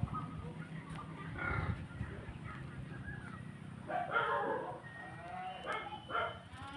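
Farm animals calling: several short pitched cries, the loudest group about four seconds in.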